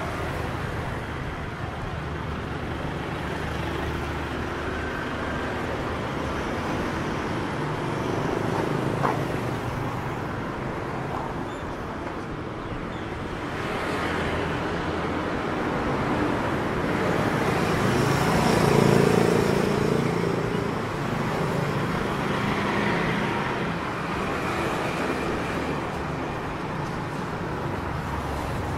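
Street traffic: a steady wash of road noise from passing vehicles, with one vehicle passing louder and closer about two-thirds of the way through.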